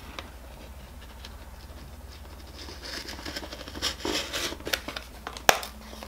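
Small blade of a Gerber GDC Zip Blade keychain knife scraping and cutting through a cardboard card, a run of scratchy strokes starting about halfway in. There is one sharp click near the end.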